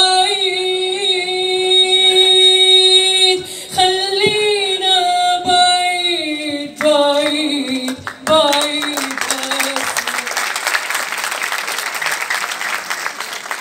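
Woman singing solo into a microphone, long held notes with a wavering vibrato in phrases that step down in pitch. Her last note fades about ten seconds in as applause breaks out and carries on to the end.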